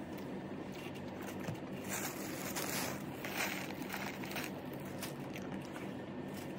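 Thin plastic sheet rustling and crinkling as it is handled, loudest for a couple of seconds in the middle, over a steady low hum.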